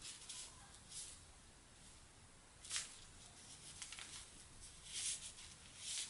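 Faint, soft swishes of a Chinese ink brush dragged across paper as a long stroke is painted, a handful of short strokes with the loudest a little under three seconds in.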